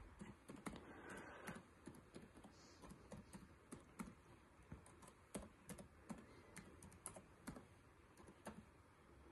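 Faint, irregular clicking of keys being typed on an Acer laptop keyboard.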